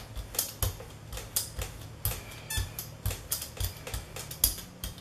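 Rubber brayer rolled back and forth over acrylic paint on a gel plate, making a rapid, irregular run of sticky clicks and crackles as it lifts off the excess paint.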